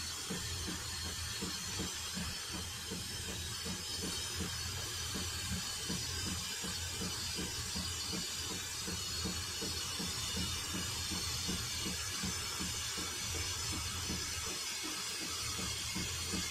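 Gear oil being slowly fed from a plastic bottle through a thin filler tube into a fill hole under the car: a steady hiss with soft low pulses about three times a second.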